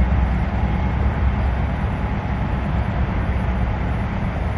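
Diesel locomotive rumbling as it pulls away, a steady low rumble that eases slightly toward the end.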